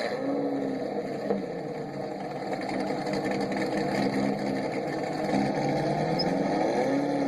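Chevrolet Corvette V8 engine running steadily, its pitch dipping and rising slightly in the second half.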